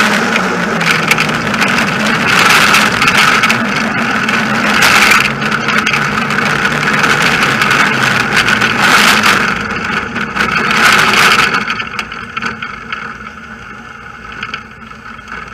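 Engineless soapbox cart rolling fast downhill: a loud, steady rush of its wheels on the asphalt and air going past, with some rattle from the cart. The noise drops sharply about three-quarters of the way through as the cart slows.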